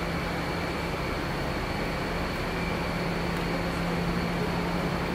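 Steady machine hum over an even rush of air-like noise, holding at one level throughout with a low drone and a faint high whine.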